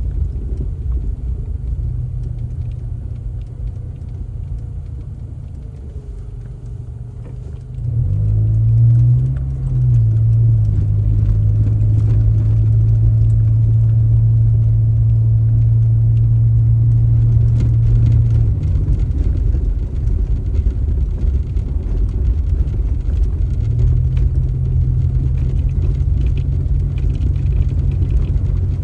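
Car in motion: a steady low rumble with an engine hum. The hum swells about eight seconds in and holds level, drops back about two-thirds of the way through, then returns.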